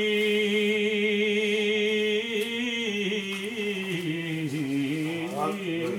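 A man's voice singing an Urdu devotional poem, drawing out one long held note that wavers, dips and slides back up near the end.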